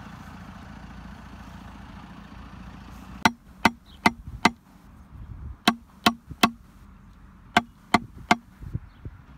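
Backhoe engine running steadily, then a hammer striking the top of a green PVC pipe ring to drive it into the trench floor for an infiltration test: ten sharp blows in three quick groups of four, three and three, each with a short ring.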